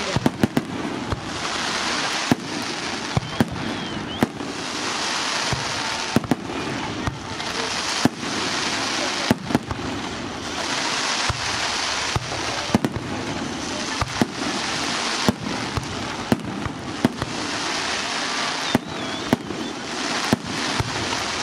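Aerial fireworks display: shells bursting with sharp bangs, scattered irregularly and at times in quick clusters of several, over a continuous noisy background.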